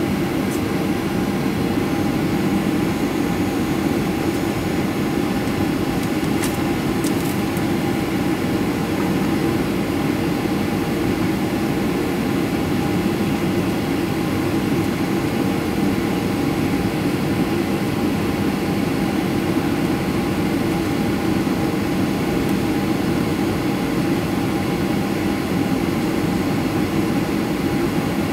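Cabin noise of a Boeing 737-300 on approach, heard beside the wing: its CFM56-3 turbofan engines running steadily under the rush of airflow, with a few steady tones over the noise.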